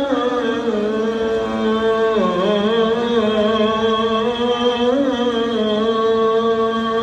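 Arabic religious chanting: a single voice holds one long, ornamented phrase, bending slowly up and down in pitch, in the style of Quran recitation.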